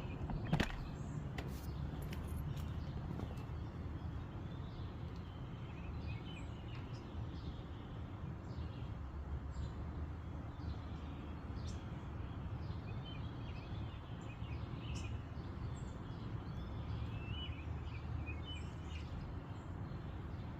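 Birds chirping here and there over a steady low rumble of outdoor background noise, with a few faint clicks in the first couple of seconds.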